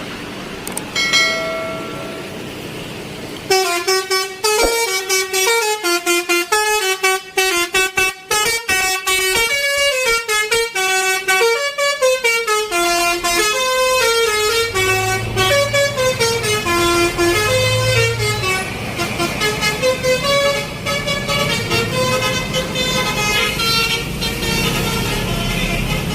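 Multi-tone 'telolet' bus horn playing a melody of quick, stepped notes. A short few-note toot comes first, and the full tune starts about three seconds in. A low rumble joins under it in the second half.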